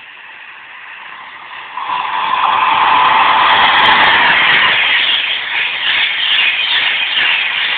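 Virgin Pendolino (Class 390) electric train passing through the station at speed: a rushing noise that swells over the first two seconds and stays loud as the carriages sweep by, with a quick rhythmic clatter near the end.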